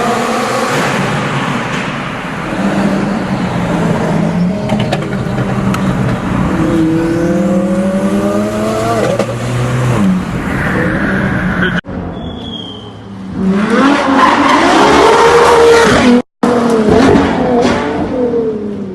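Supercar engines revving and accelerating hard, their pitch climbing, with tyres squealing and skidding through powerslides. The sound drops out abruptly twice, near 12 s and 16 s, where one clip cuts to the next.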